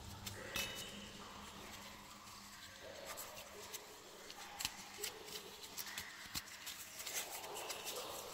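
Faint, irregular light clicks and rustling as the new water pump and its seal are handled and readied for fitting, with a few sharper ticks about half a second in and near the middle.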